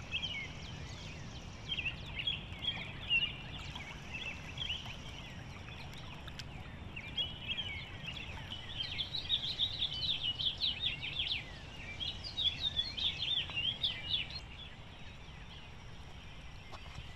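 Birds chirping and calling in a busy chorus, thickest in the middle stretch, over a low steady rumble.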